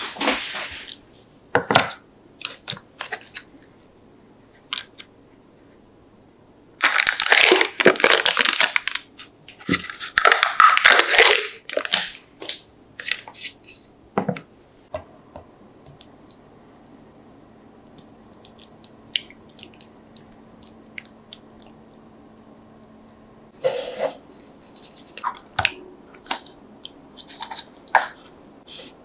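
Plastic yogurt cups clicking down on a wooden tray, then two long crackling rips as their foil lids are peeled off. Later come a few more light taps and clicks of the cups being handled.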